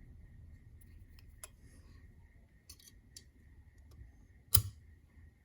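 Small metal clicks and taps as a little spring clip is worked into an upside-down KYB motorcycle fork leg, with one louder sharp click about four and a half seconds in. A faint steady high hum runs underneath.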